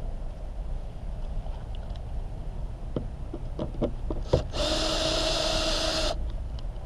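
Cordless drill spinning for about a second and a half with a steady whine as it backs a screw out of a van's plastic interior trim. A few clicks and knocks come just before, as the bit is set into the screw.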